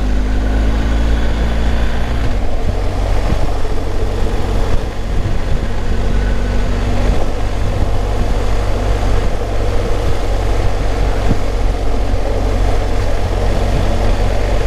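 BMW R1250 GS Rallye's boxer-twin engine under way. Its pitch rises as the bike accelerates over about the first two seconds, and it then runs steadily at road speed.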